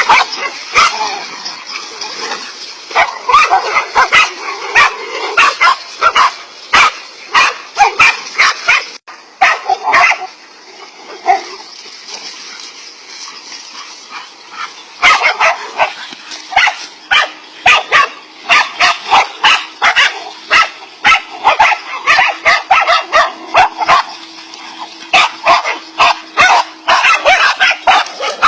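Several dogs barking rapidly and repeatedly, with yelps mixed in; the barking thins out for a few seconds about halfway through, then comes back thick and fast.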